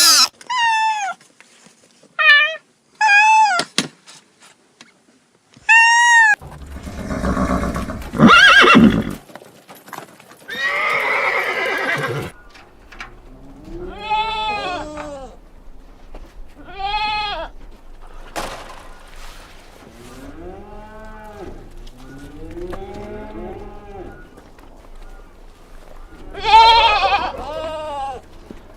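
A string of farm animal calls, one after another: short arching cries with a clear pitch, some repeated in quick runs, and a few longer, rougher calls in between.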